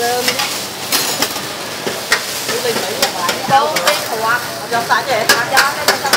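Noodles frying on a flat griddle, a steady sizzle, while a metal spatula scrapes and clacks against the hot plate in quick sharp strokes.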